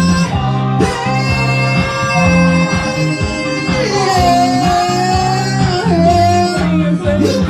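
Music: a stretch of a song without recognised words, with a melody of bending, sliding notes over a steady bass beat.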